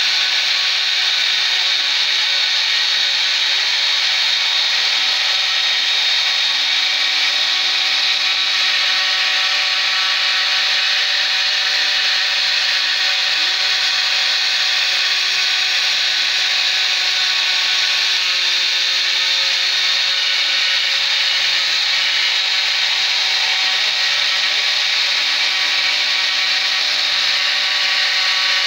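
A DIY CNC router's spindle motor running steadily at high speed while its end mill cuts a circular groove into a wooden board, with a high whine. A lower tone comes and goes several times as the machine's axes move.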